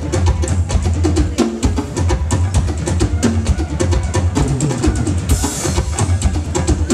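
Live drum kit and hand drums playing a fast, dense groove over a steady deep bass from the electronic side of the set.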